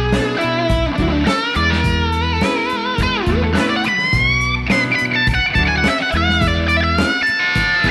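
Overdriven electric guitar playing an improvised lead solo in B minor over a backing track with a steady drum beat and bass. The held notes wobble with vibrato, and there is a rising string bend about four seconds in.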